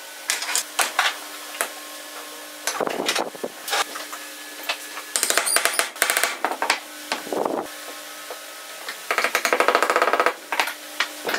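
Wooden chair slats and legs knocked and rubbed together on a workbench. Two fast runs of rapid taps follow, the second from a hammer tapping a wooden crossbar down onto a chair leg.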